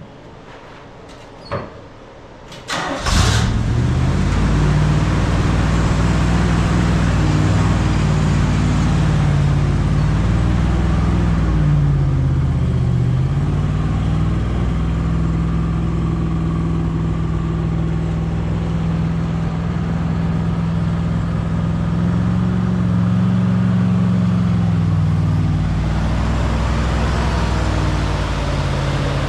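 A vehicle engine cranks and starts about three seconds in, after a couple of clicks, then runs on with its speed rising and falling a little.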